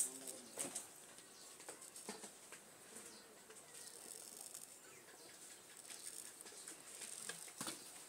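Faint, scattered short scrapes and ticks of a razor blade shaving a baby's scalp, a few in the first two seconds and a couple more near the end.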